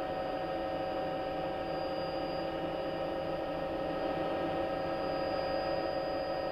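Steady electrical hum with hiss: several fixed tones that do not change pitch or level over an even noise bed.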